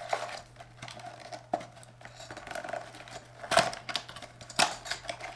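Cardboard packaging being handled: a small paperboard accessory box lifted out of a shipping box and its tuck flap pried open, with rustling, scraping and sharp taps, the two loudest about three and a half and four and a half seconds in.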